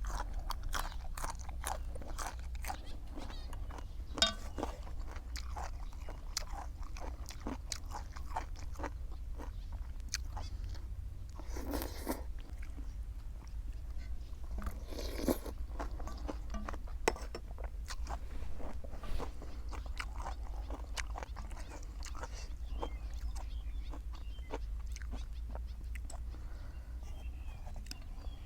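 A person eating close to the microphone, with many sharp crunches as crisp food is bitten and chewed, plus wet chewing. Two longer rushing sounds come about twelve and fifteen seconds in.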